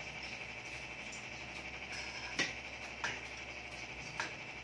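Three sharp clinks of kitchen utensils against a pot, spaced about a second apart, over a steady high hiss.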